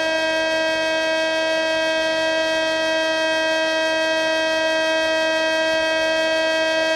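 Electric motor of a Multiplex Easy Star model plane running at steady throttle in flight: one constant whine with many overtones that holds the same pitch throughout.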